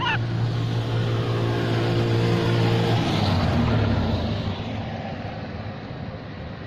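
A motor vehicle's engine running and passing, swelling to its loudest about halfway and then fading away. A brief high squeal sounds at the very start.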